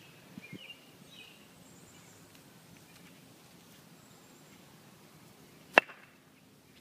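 A croquet mallet striking the ball once, a single sharp crack near the end.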